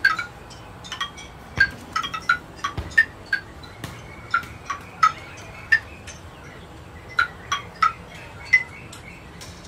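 Chimes tinkling in light, irregular strikes, roughly two a second, over a faint steady hiss.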